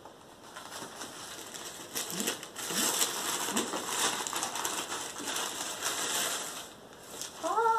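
Gift wrapping and a gift bag rustling and crinkling as presents are handled and unwrapped, with scattered small crackles.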